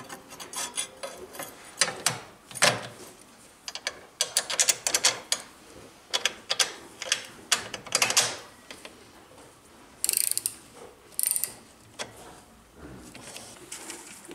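Steel parts of a homemade charcoal grinder clinking and clanking as they are handled and fitted together: toothed blades on a spindle in pillow-block bearings over a slotted steel comb plate. A long run of sharp metallic clicks, with two short scraping bursts about ten and eleven seconds in.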